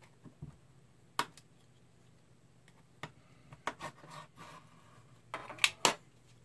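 A rotary cutter trimming the edge of a stack of paper against a ruler on a cutting mat: short scraping of the blade through the paper among several sharp clicks and taps as the ruler, cutter and paper are handled, the loudest two a little before the end.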